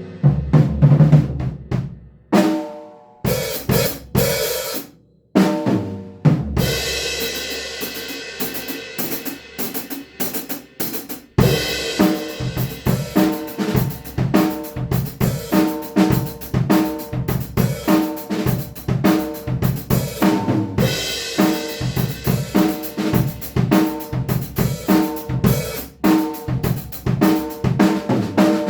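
Acoustic drum kit played: scattered hits and short fills with pauses for the first ten seconds or so, then a steady groove of kick, snare and cymbals from about eleven seconds in.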